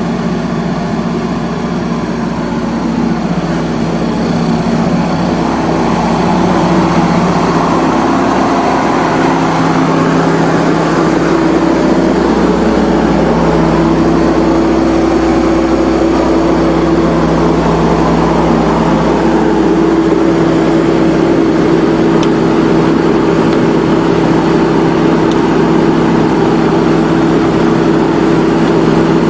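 Generac 27 kW QuietSource liquid-cooled standby generator running steadily under its natural-gas inline four-cylinder automotive engine at about 1800 rpm, a constant engine hum that grows louder about six seconds in.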